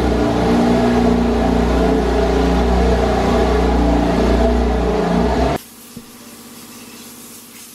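Porsche 911 Carrera 4 GTS flat-six engine running as the car creeps forward at low speed. The engine sound cuts off abruptly about five and a half seconds in, leaving a much quieter steady background with a single click.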